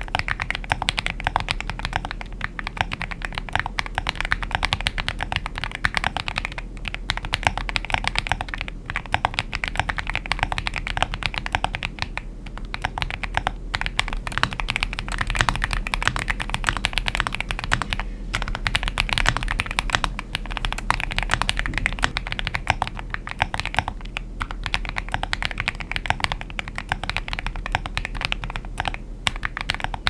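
Continuous fast typing on a Monsgeek M1W aluminium mechanical keyboard fitted with modded KTT Kang White linear switches on two-stage springs, with a polyfill mod inside the case. It makes a dense patter of keystrokes with a few brief pauses.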